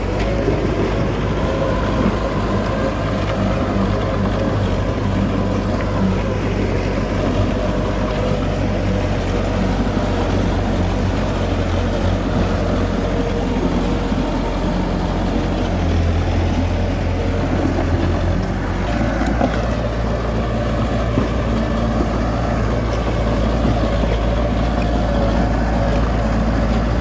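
Heavy machinery's diesel engine running steadily, a low hum whose pitch shifts slightly about two-thirds of the way through.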